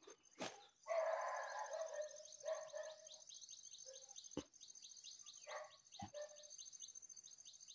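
A distant dog barking a few times, loudest about a second in. Behind it run a steady high insect drone and a quick run of chirps.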